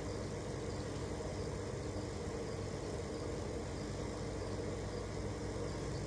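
Steady hum and rush of the cooking pot on the stove, with the chicken simmering in its own juices in the open pot.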